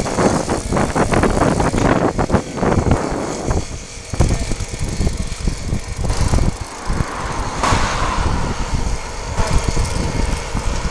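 Wind buffeting the microphone of a camera carried on a moving bicycle, a gusty rumble over road noise.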